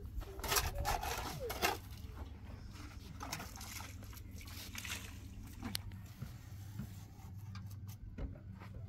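Wet mortar being scooped and slapped with a trowel and bucket while laying concrete blocks: a cluster of wet scraping, splattering strokes in the first couple of seconds, then a few single ones, over a low steady hum.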